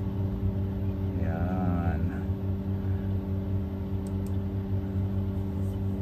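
A steady low machine hum, with a couple of faint clicks about four seconds in.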